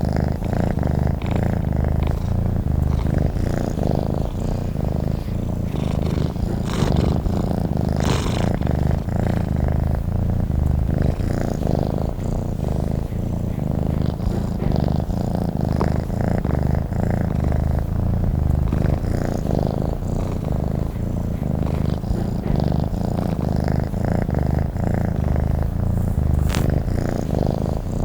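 Domestic cat purring steadily, a continuous low, rapidly pulsing rumble.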